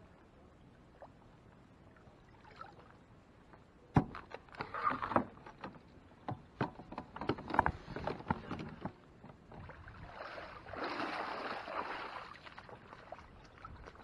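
Knocks and clatter of gear against a plastic fishing kayak's hull, starting with one sharp knock about four seconds in and running on as a string of clicks and bumps, then a rushing splash of water for about two seconds near the end.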